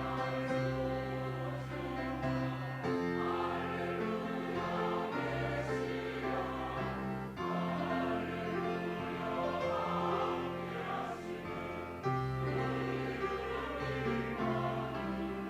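Church choir singing an anthem in sustained, multi-part harmony over instrumental accompaniment.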